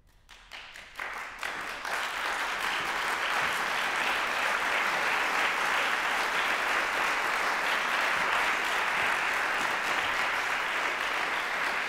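Audience applause: a few scattered claps at first, swelling within about two seconds into full, steady clapping.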